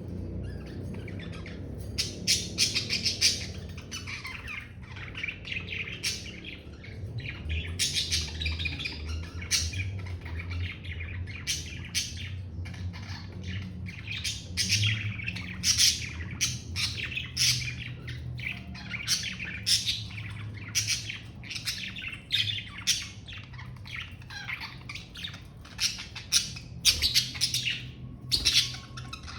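Budgerigars chirping and chattering in a continuous stream of short, quick calls, over a steady low hum.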